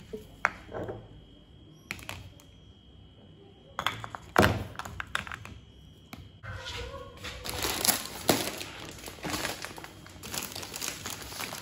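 Glass baby-food jars with metal lids clinking and knocking as they are set down in a clear plastic basket, with a loud thunk about four seconds in. From a little past halfway, plastic-wrapped packs of baby wipes crinkle as they are handled.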